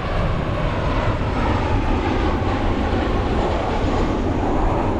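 Jet airliner engines, a steady loud rumble with a hiss, as the plane passes overhead.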